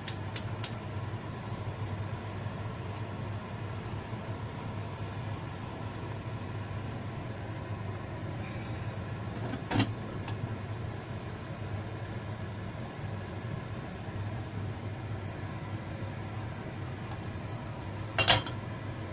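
A few quick clicks as a gas stove burner is lit, then a steady low hum throughout. About ten seconds in there is a short knock as the clay pot is handled, and near the end a louder short clatter as the pot's ceramic lid is lifted off.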